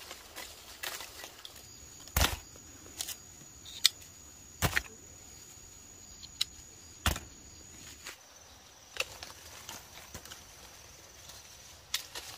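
Irregular sharp clicks and snaps, loudest about two, four and a half, and seven seconds in, over a faint steady high-pitched whine.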